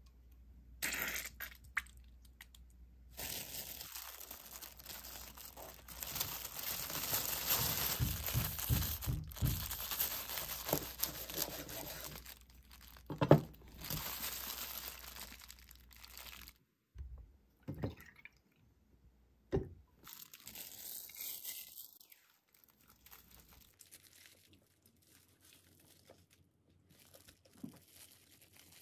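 Clear plastic wrap crinkling and rustling as it is pulled around a stuffed sandwich and pressed tight, with sharp clicks, the loudest about halfway through. After that, only scattered short handling knocks.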